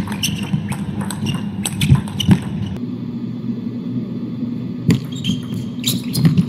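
Table tennis ball clicking sharply off the paddles and table in a fast rally, over a steady low hall background. The clicks stop for about two seconds in the middle, then start again with one loud hit and a quick run of further strokes.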